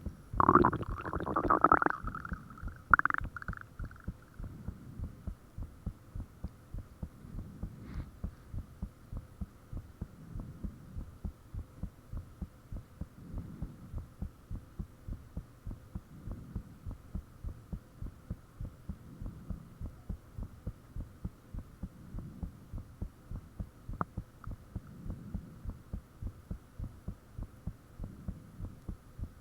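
A human heartbeat picked up close by a microphone: a steady run of evenly spaced low thumps over a faint steady hum. In the first two seconds a loud high-pitched sound with wavering pitch cuts in, and a shorter one follows at about three seconds.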